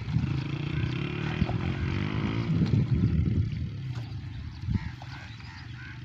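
An engine running with a steady low drone, its pitch shifting briefly about two seconds in, with a few sharp knocks over it.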